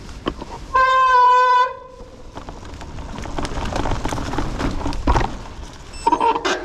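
Mountain bike disc brake squealing in one steady, horn-like tone for about a second. Then tyres rolling and the bike rattling over a dirt trail, with short squeaks and knocks near the end.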